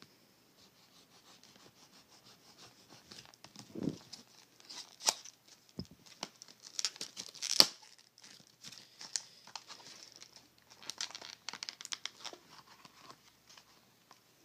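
Retail packaging being cut open with a knife and torn by hand: irregular crinkling, tearing and sharp clicks, the loudest snap about halfway through.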